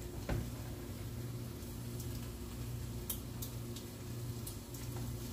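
Faint scattered ticks and crackles from a pot cooking on the stove as thick tomato sauce is slowly poured into it, over a low steady hum.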